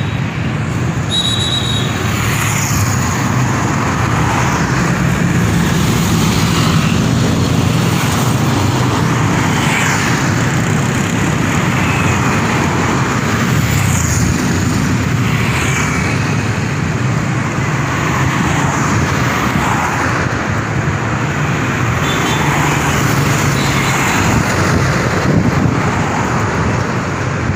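Steady road traffic, with the engines of vehicles passing close by one after another, each rising and fading every few seconds.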